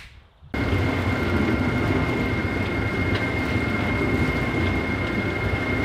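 Ribbon blender running with its three-phase electric motor driving the mixer, churning mushroom substrate. A steady high whine sits over a low, even rumble, and the sound starts abruptly about half a second in.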